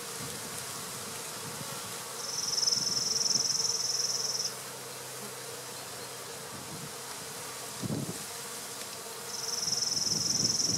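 Honeybees humming around an opened hive box. Twice a high, even rasping buzz lasts about two seconds, and there is a low knock about eight seconds in.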